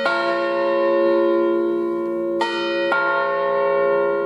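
Several church bells cast by the Rüetschi foundry in Aarau ring together for a service, with overlapping strikes. Fresh strikes at different pitches come at the start and about two and a half and three seconds in, over a long, rich ringing hum.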